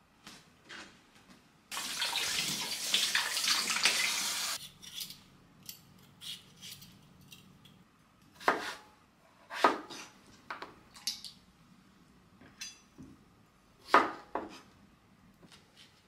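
A kitchen tap runs for about three seconds, starting about two seconds in. Then a kitchen knife cuts through peeled potatoes, making several separate sharp knocks on a wooden cutting board, the loudest near the end.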